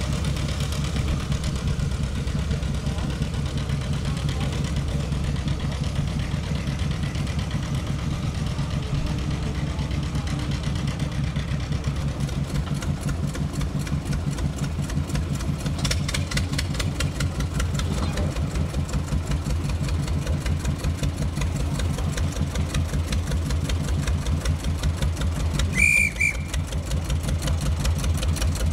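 Small narrow-gauge diesel locomotive engine running with a steady knocking beat. The beat grows clearer as the locomotive comes closer. A short high-pitched toot sounds near the end.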